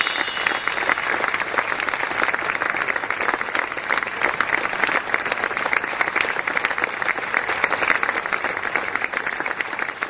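Applause from a crowd: dense, steady clapping of many hands, tapering off near the end.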